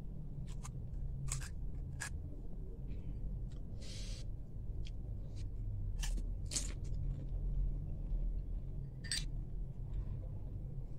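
Eating panipuri: crisp fried puri shells being cracked open with a spoon and crunched while chewing, heard as scattered short crackles and clicks. A low steady hum runs underneath.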